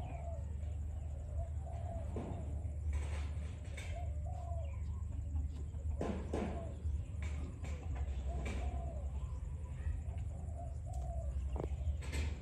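Birds cooing: short, low arched coos repeating every second or so. A few sharp clicks are scattered among them, over a steady low hum.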